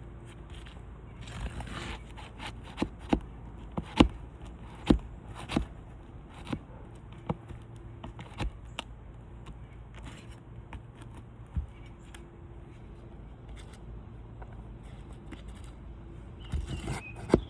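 Nails being pried out of brittle asphalt roof shingles: a string of sharp clicks and knocks from the tool on the nails and shingles, with a short scrape about a second and a half in.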